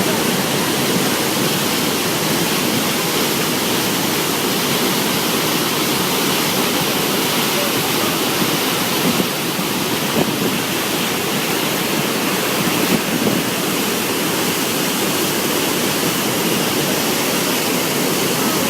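Hukou Waterfall on the Yellow River: a large volume of water pouring over the falls, making a loud, steady rushing noise.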